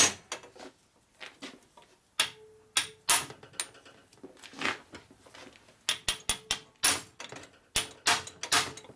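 Hammer blows on a hand impact driver, tightening a fastener on a Harley knucklehead engine case. The knocks come irregularly, some in quick runs of three or four, and several leave a short metallic ring.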